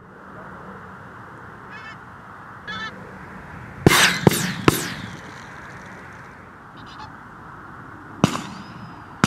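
Pinkfoot geese calling with short honking calls, then three shotgun shots in quick succession about four seconds in, and another shot near the end.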